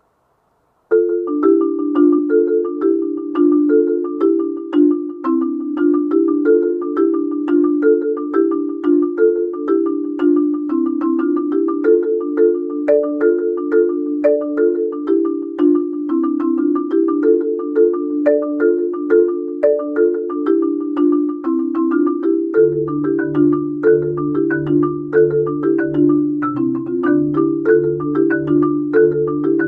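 Marimba played with four yarn mallets: a quick, continuous pattern of struck notes begins about a second in, and low bass notes join around three-quarters of the way through.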